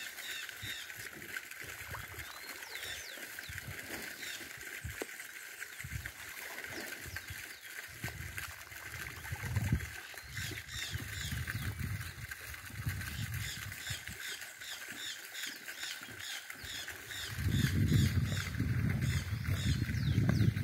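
Fish churning and splashing at the surface of a pond as they take thrown feed, the water 'boiling' with them. The splashing comes in irregular surges and grows louder near the end, over a steady high drone and rapid repeated chirping in the background.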